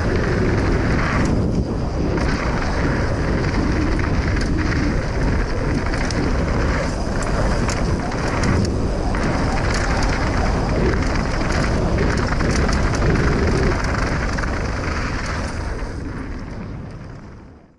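Mountain bike descending a dirt jump trail, heard from a mounted action camera: steady wind buffeting on the microphone and tyre rumble over dirt, with frequent small rattles and clicks from the bike. It fades out over the last couple of seconds.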